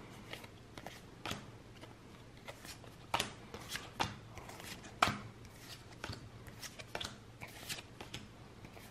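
Pokémon trading cards being flipped through one at a time in the hands: a quiet, irregular run of quick papery flicks and slides, with a sharper one about five seconds in.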